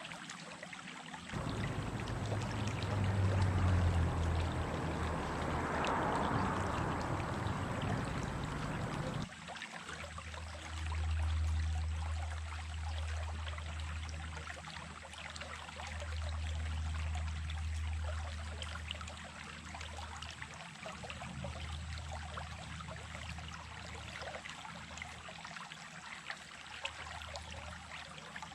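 Creek water running in a steady rush. About nine seconds in the sound changes abruptly to a quieter flow with a deep low rumble underneath.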